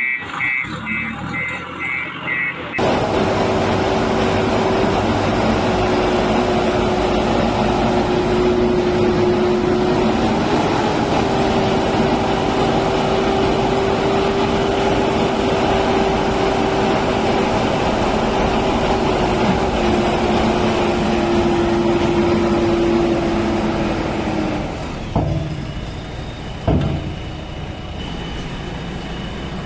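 A heavy machine's engine running steadily with a held whine over it, cutting back to a lighter run about 25 seconds in, where two sharp knocks follow. The first couple of seconds hold a quick row of short high beeps.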